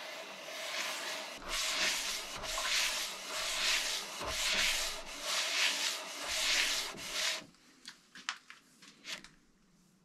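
Metal block rubbed back and forth by hand on 250-grit wet-and-dry paper lubricated with WD-40, lapping its face flat: a rough scraping in strokes about once a second, stopping about seven and a half seconds in, followed by a few light clicks.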